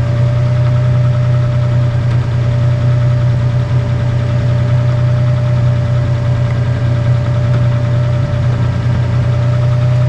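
A machine running at an even speed: a loud, steady low hum with a constant higher whine above it, unchanged throughout.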